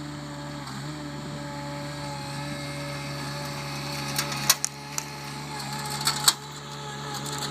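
Compact articulating loader (AL20DX) with a log grapple, its engine running at a steady pitch, with a few sharp clanks about halfway through and near the end.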